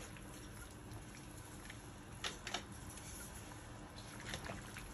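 Faint bubbling of a pot of boiling water as bok choy is pushed down into it to blanch, with a couple of light clicks a little past halfway and another near the end.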